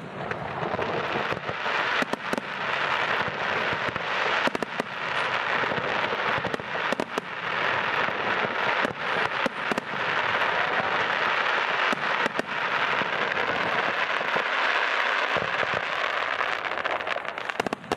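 Aerial fireworks display: a dense, continuous crackle of bursting shells, with many sharp bangs scattered through it.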